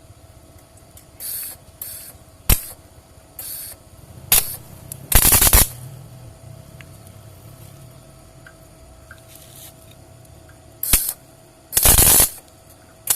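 An aerosol spray can sprayed in about nine short hissing blasts, the longest and loudest about five seconds in and near the end, with a couple of sharp clicks between them.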